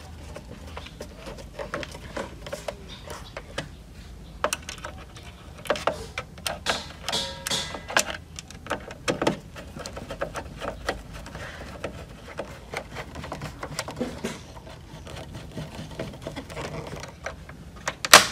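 A screwdriver working screws out of the metal stand bracket on the back of a flat-panel monitor: irregular metal clicks and scrapes against the plastic housing. There is a sharp knock near the end.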